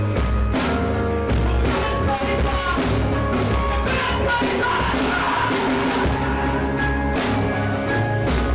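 Live band music from an audience recording of an acoustic set: held pitched notes over a heavy bass, with regular percussion strikes.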